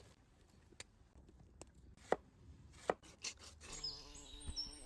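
Scattered sharp knocks of a knife chopping on a board, then birds chirping in the last second or so, over a low steady tone.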